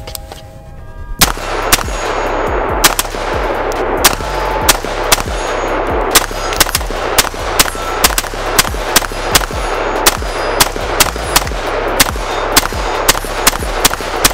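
Custom AR-15-style rifle fired in a long string of semi-automatic shots, about two a second at an uneven pace with some shots in quick pairs, starting about a second in.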